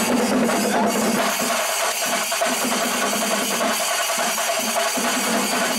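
Percussion music of drums and cymbals playing steadily and densely.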